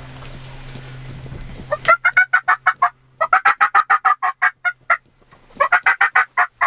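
Wild turkey gobbler gobbling three times in quick succession, starting about two seconds in. Each gobble is a fast rattle of notes.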